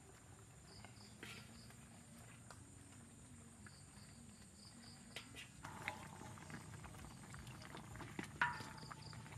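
A metal ladle scraping and knocking against a large metal wok while cooked beef ribs are scooped out. There are two louder clanks that ring briefly, a little past halfway and again near the end.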